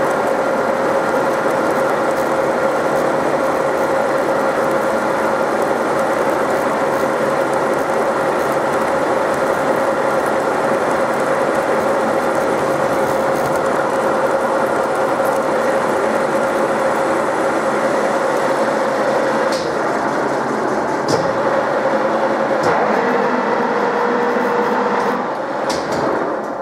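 Milling machine end mill cutting into a metal brake caliper mount under automatic power feed: a loud, steady machining din with a constant hum from the spindle drive and a few sharp ticks. The noise drops away near the end as the cutter clears the work.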